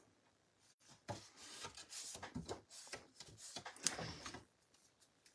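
Sheets of white cardstock being handled and slid over a craft mat: faint rustling and scraping with small taps, the sharpest tap about four seconds in.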